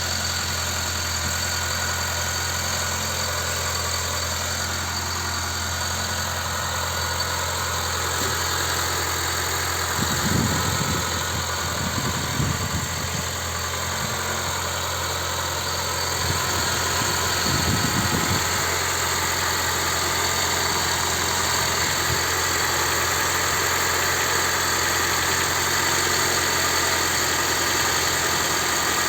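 Honda Civic sedan engine idling steadily from cold, with a few low rumbles partway through. Near the end a light knock sets in, which the owner says starts after about 25 seconds of cold running.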